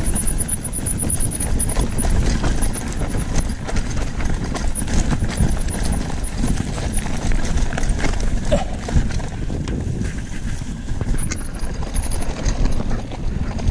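Mountain bike riding over a rough trail: a steady rattle of irregular bumps and knocks over a dense low rumble.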